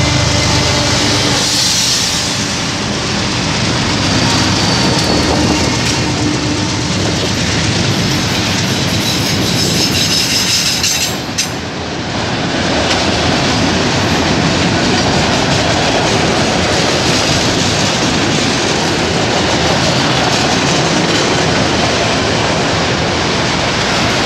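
Freight train passing at close range: the diesel locomotives' engines run for the first couple of seconds as they go by, then a long string of autorack cars rolls past with a steady, loud noise of wheels on the rails.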